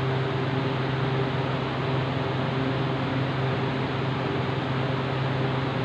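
Steady low electrical hum over an even hiss, unchanging throughout: continuous room background noise.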